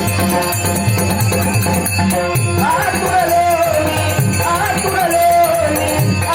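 Marathi devotional Ganesh stavan in Dashavatar folk-theatre style: a steady drum beat with small jingling cymbals under a held accompanying tone. A man's voice comes in about two and a half seconds in, singing long, wavering phrases.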